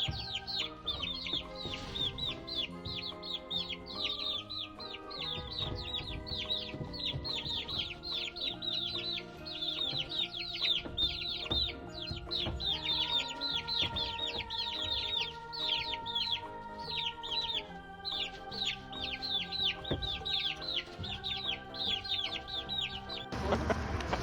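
Chicks peeping, a rapid run of short falling chirps several a second, over soft background music with held chords. Near the end it cuts to a louder, noisier farmyard sound.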